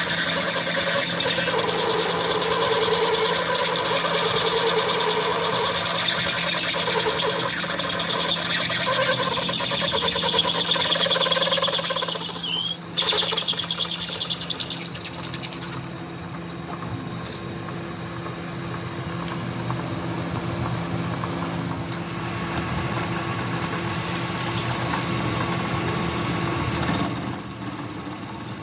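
A power tool's motor running steadily with a fine, rapid mechanical rattle. Its sound changes briefly about a third of the way through, and a high whine comes in near the end.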